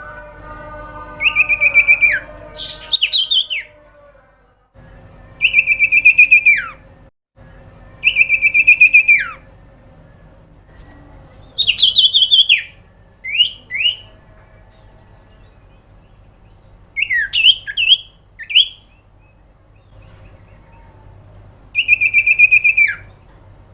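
Common iora (sirpu/cipoh) repeatedly giving a buzzy, rattling call, about eight times. Each call lasts about a second, holds a high pitch and then drops sharply at the end; a few come as quick double notes.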